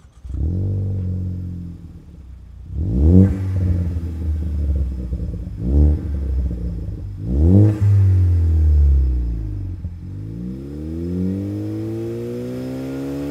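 Ford Focus ST's turbocharged four-cylinder starting up and revving, heard from outside the car through a stainless-steel 3-inch cat-back exhaust. The engine catches and settles to idle, blips sharply three times, then climbs slowly in revs near the end.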